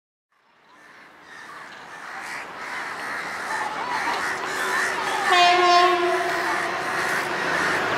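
WAP-4 electric locomotive approaching, its running noise growing steadily louder. A little past halfway it sounds its horn once, a steady note of about a second, the loudest thing here.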